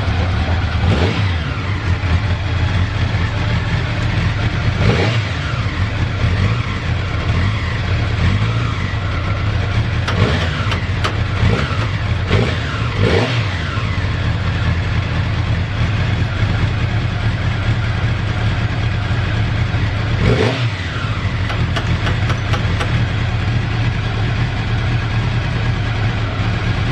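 Honda CBX650 motorcycle's four-cylinder engine idling steadily, blipped on the throttle so it revs up and drops back: once about a second in, again a few seconds later, three or four times in quick succession around the middle, and once more later. The idle is stable, with no abnormal noise.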